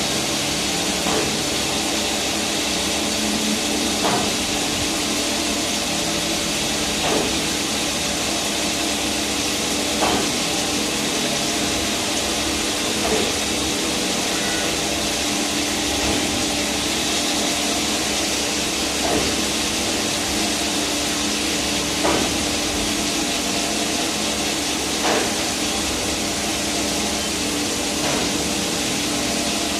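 CNC lathe turning a V-belt pulley: a steady machining noise with a constant hum, broken by a short knock about every three seconds.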